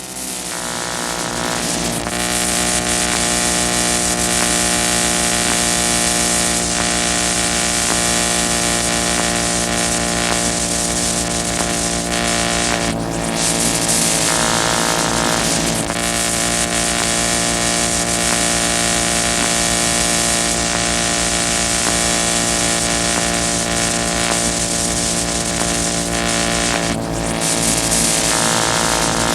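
Harsh noise music: a loud, steady wall of layered droning tones under a bright hiss, shifting a little around the middle and again near the end.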